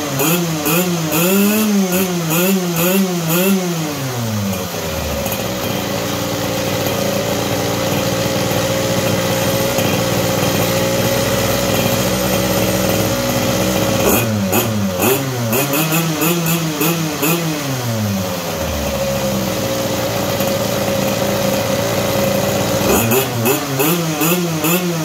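Small single-cylinder engine of a quarter-scale Formula 1 model car running, blipped up and down on its hand throttle lever near the start, in the middle and near the end, and settling to a steady idle in between. It runs smoothly.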